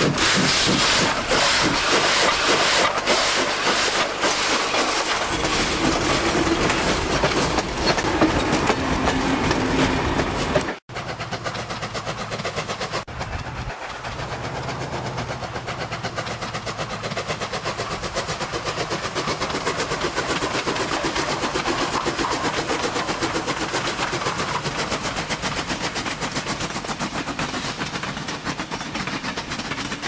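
Steam locomotive exhaust chuffing in an even rhythm of a few strokes a second. About a third of the way in it cuts off abruptly and a faster, denser run of chuffs follows.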